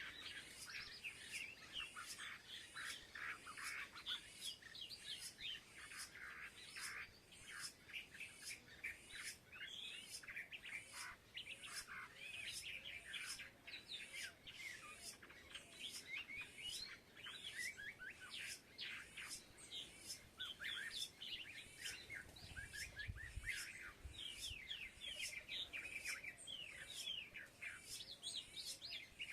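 A flock of small birds chirping continuously, many short overlapping chirps and tweets. A faint, even ticking about twice a second runs beneath them.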